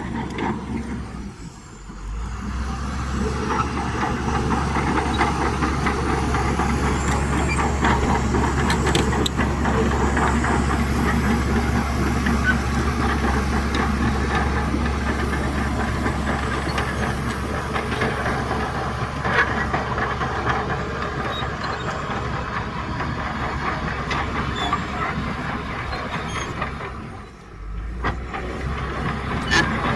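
Heavy diesel earthmoving machinery running and working, a steady low engine drone with occasional knocks and clanks. The sound drops away briefly about two seconds in and again near the end.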